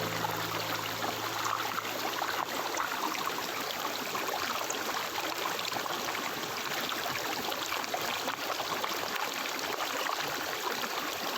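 Stream water flowing and trickling steadily. A few low sustained music notes fade out during the first few seconds.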